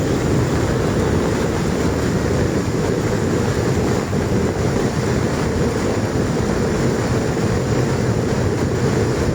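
Swollen floodwater rushing past in a steady, loud roar that does not let up.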